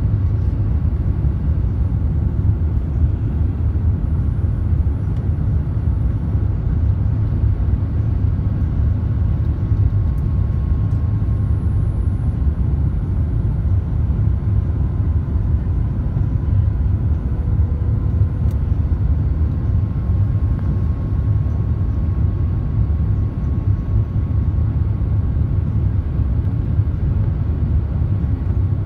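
Steady low rumble of engine and airflow noise inside an airliner cabin during descent on approach, with a faint steady whine above it.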